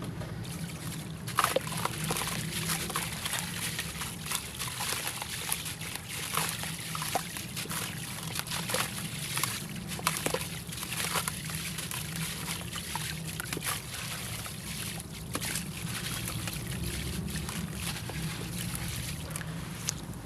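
Crumbly concrete being crushed and dipped in water: irregular crackles and crunches mixed with wet sloshing and trickling.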